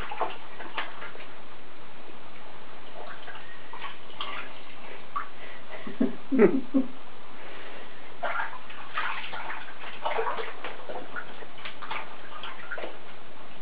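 Bathwater sloshing and splashing in a shallow tub as a wet Chihuahua puppy is washed by hand, with small splashes throughout and a brief louder sound about halfway through.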